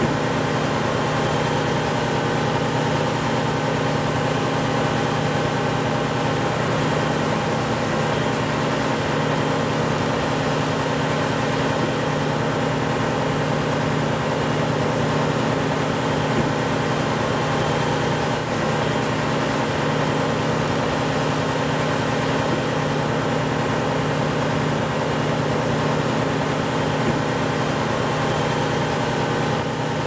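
Combine harvester's engine idling, a steady hum that does not change.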